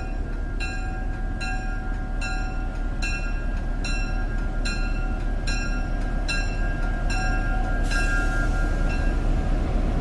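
Train running past with a steady rumble, and a bright bell-like ding repeating a little more than once a second that stops near the end.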